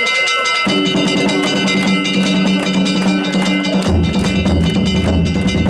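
Danjiri festival hayashi: rapid, continuous strikes on ringing hand gongs together with drum beats. A low steady hum joins about a second in and drops deeper a little past the middle.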